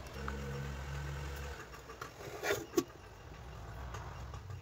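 A low steady hum, with a short scrape and then a single sharp metallic clink about two and a half seconds in, as a metal lid is handled over a metal pot of idli batter.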